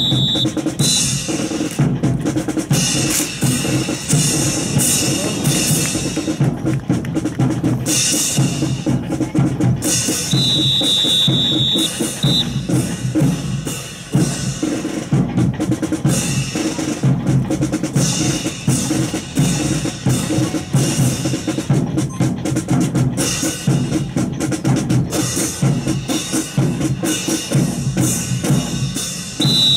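Drum-driven music with a steady beat. About ten seconds in, and again near the end, a high whistle sounds a long blast followed by a short pip.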